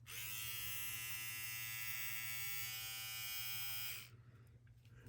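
KENSEN body groomer, running on a single AA battery, switched on: its small motor comes up to speed in a moment and buzzes steadily for about four seconds, then is switched off.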